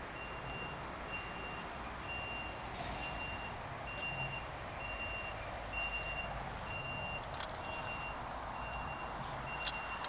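Electronic beeper sounding one high tone over and over, about two beeps a second, over a steady hiss, with a few sharp clicks near the end.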